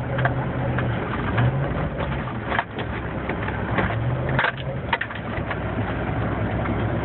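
Range Rover's engine running under steady load while driving through deep snow, with the tyres crunching and packing the snow and a few sharp knocks partway through.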